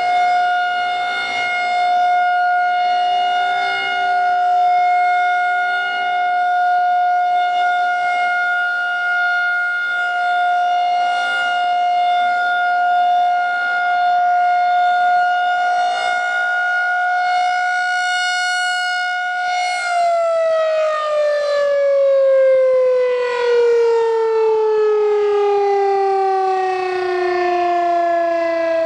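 Federal Signal 2001-130 single-tone rotating outdoor warning siren sounding a steady tone during its weekly test, the level swelling and fading slightly as the head turns. About two-thirds of the way in the power cuts and it begins winding down, the pitch falling smoothly to the end.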